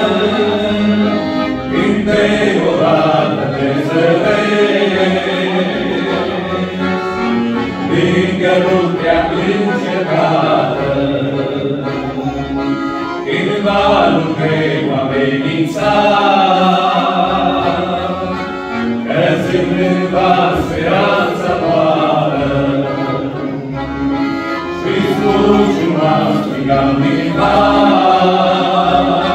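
Three male voices singing a hymn together, accompanied by a piano accordion.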